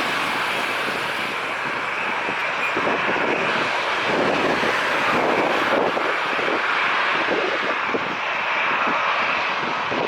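Boeing 737-800's CFM56-7B turbofan jet engines running, a steady loud rush with an uneven rumbling surge through it.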